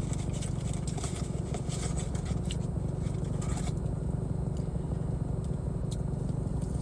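Steady low rumble of a parked car's engine and air conditioning running, heard inside the cabin; the owner thinks the rumbling comes from the air. A few faint soft clicks and rustles sound over it in the first few seconds.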